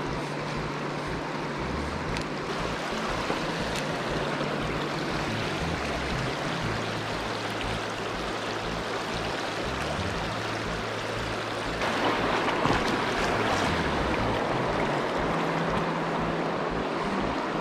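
Mountain trout stream rushing over shallow riffles, a steady wash of water that grows louder about twelve seconds in.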